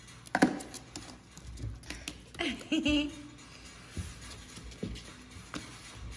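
Blue toy slime squelching wetly as it slides out of a plastic jar onto a countertop, with a few light knocks after it.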